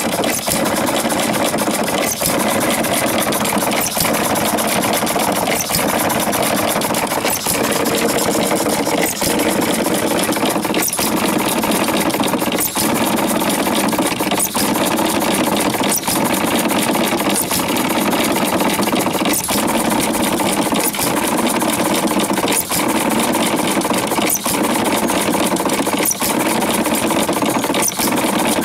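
Homemade single-cylinder, air-cooled hit-and-miss engine converted from a Curtis air compressor, running with a fast, steady mechanical clatter. The sound dips briefly about every second and three-quarters.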